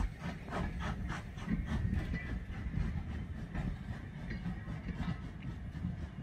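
Carriages of a steam-hauled train rolling away along the track. The wheels rumble low, with rhythmic clicks over the rail joints that thin out after about the first second as the train draws off.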